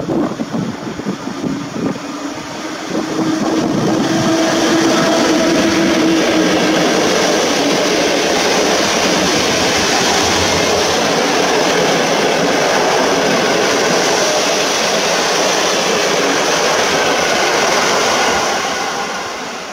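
PKP Intercity passenger train hauled by an EP07 electric locomotive passing through a station at speed. The sound swells about three seconds in to a steady rush of wheels and coaches, then fades as the last coach goes by near the end.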